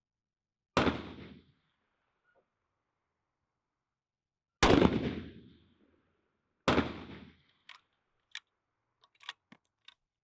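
Three loud rifle shots from a 6.5 Creedmoor bolt-action hunting rifle, each a sharp crack that dies away over about a second; the second is the loudest and the third follows about two seconds after it. A handful of faint, short clicks come near the end.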